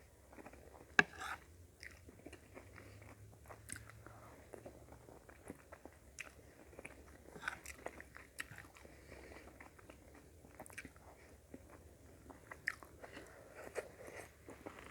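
Close-miked chewing and mouth sounds of a person eating a mouthful of rice and sautéed vegetables, soft and irregular, with scattered small clicks and one sharper click about a second in.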